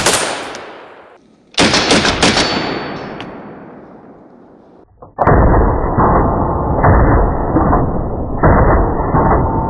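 Short-barrelled AK in 7.62×39 firing through a four-port prototype muzzle brake. A shot comes right at the start and a quick string of shots about a second and a half in, each ringing out for a couple of seconds. From about five seconds in there is a longer stretch of repeated, duller-sounding shots.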